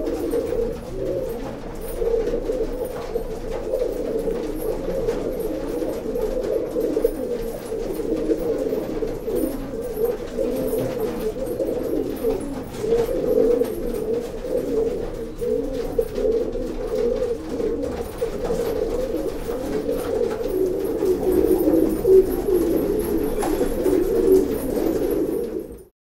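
A flock of domestic pigeons cooing continuously, many low overlapping coos at once.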